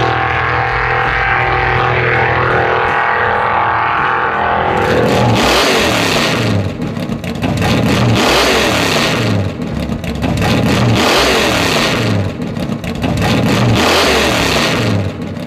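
Muscle-car V8 engine running at a steady note, then climbing in pitch four times at about three-second intervals, dropping back between climbs as it is revved or accelerated through the gears.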